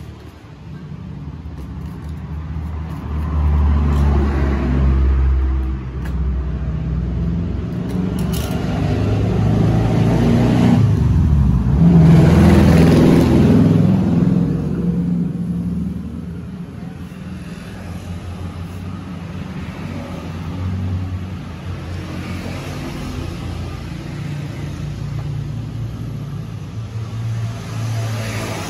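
A motor vehicle engine running, swelling louder about ten to fourteen seconds in and then easing off.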